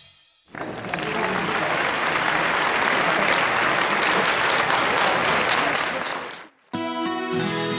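Audience clapping, steady for about six seconds and then stopping abruptly. Guitar-led music starts near the end.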